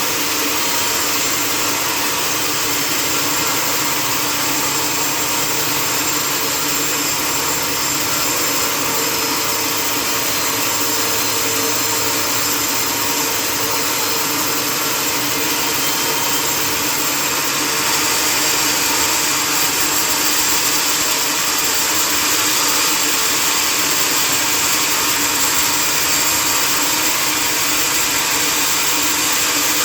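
Sawmill machinery running steadily, a continuous loud mechanical noise with a few steady tones over a dense hiss, getting a little louder about eighteen seconds in.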